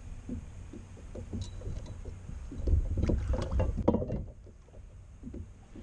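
Knocks and bumps on a kayak over a low rumble, coming thickest and loudest a little past halfway, then suddenly muffled.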